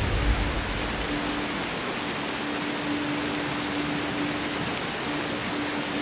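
Steady rush of whitewater pouring down a waterfall, a river swollen with spring snowmelt runoff. A faint held music note sits underneath, and a deep bass note fades out within the first second.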